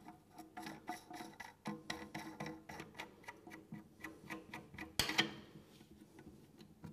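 Rapid, light, uneven clicking as a back nut is turned by hand onto a toilet float valve's threaded tail, with one louder knock about five seconds in.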